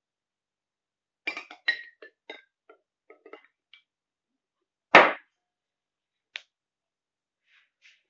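Drinking glasses clinking and tapping as they are picked up and set down on a wooden table: a quick run of light clinks with short ringing, then one sharp knock about five seconds in and a last small clink.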